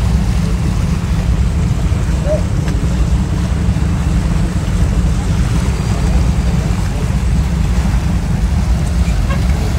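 Ro-ro ferry under way at sea: a loud, steady low rumble with wind buffeting the microphone.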